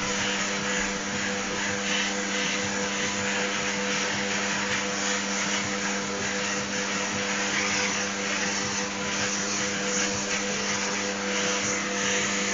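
Vacuum cleaner running steadily, a rushing of air with a constant hum, as its hose nozzle is worked over a short-haired dog's coat.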